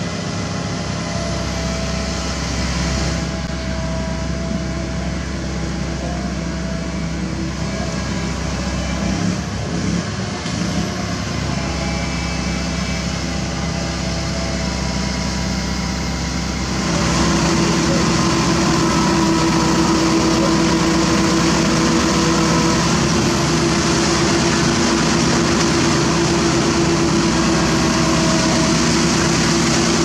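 Komatsu PC195LC hydraulic excavator's diesel engine running steadily while digging, stepping up louder a little past halfway through.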